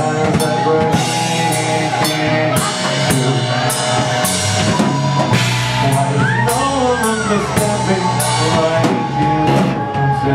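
Live rock band playing: a drum kit keeping a steady beat with cymbal hits about twice a second, under sustained electric keyboard chords and electric guitar, with a few sliding notes midway.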